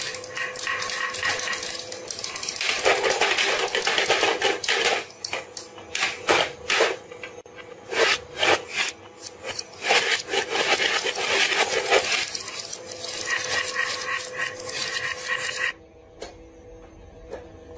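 Glass marbles rolling and clattering down a wooden marble-run slope and knocking around inside a plastic toy fishing game, a dense run of rapid clicks and knocks. It stops abruptly near the end.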